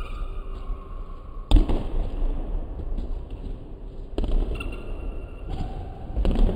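Basketballs bouncing on a hardwood gym floor: three loud thuds, about 1.5 s in, about 4 s in and near the end, echoing in a large gym over the background noise of a practice.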